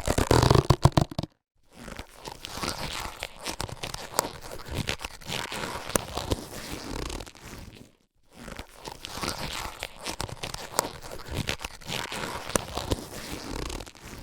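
Latex surgical gloves being handled: crackly rubbing and stretching of the rubber with many small clicks. A louder burst comes in the first second, and there are brief pauses about a second and about eight seconds in.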